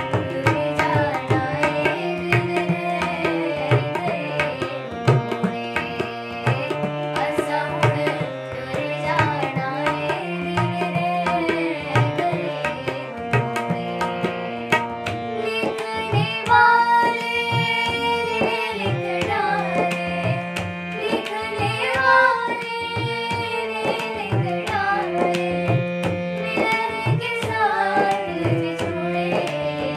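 Girls' voices singing a Hindi film song over the held chords of a harmonium, with tabla keeping a steady rhythm of quick strokes underneath.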